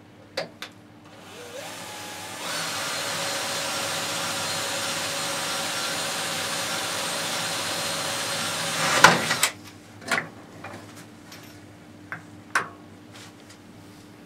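Electric drill spinning up and boring a hole into the thin aluminium alloy front edge of a table saw, running steadily for about seven seconds. It ends in a brief loud burst and stops. A few light knocks and clicks follow.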